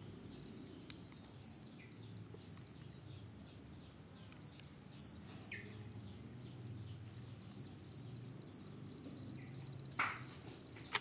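Canon EOS 5 film camera's self-timer beeping as it counts down: a high beep about twice a second, quickening to rapid beeps for the last two seconds. The shutter fires with a sharp click at the very end, and the film winds on to the next frame.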